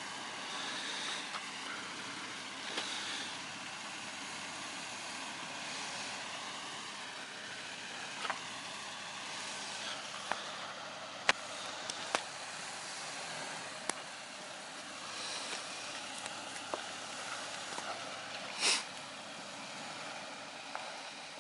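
Toyota Tacoma pickup crawling slowly through a deep rut on a dirt trail, its engine running low and steady under a hiss. A few sharp clicks and snaps come about ten to fourteen seconds in, and a brief louder rush near the end.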